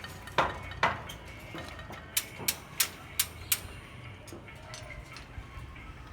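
Metal clinking as steel reinforcing bars are handled: two heavier clanks, then five quick, sharp metallic taps about three a second.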